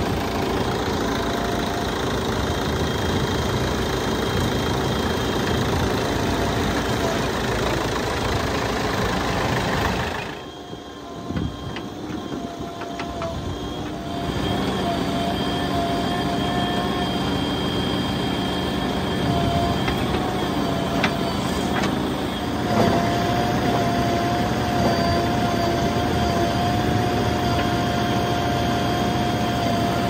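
Diesel engines of farm tractors and a JCB 3DX backhoe loader running steadily as the backhoe digs and loads soil, with a held pitched tone over the engine noise. The sound drops away briefly about ten seconds in, then the machine noise resumes.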